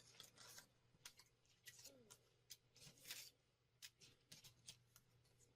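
Near silence: faint scattered clicks and rustles over a faint hum, with a brief faint falling tone about two seconds in.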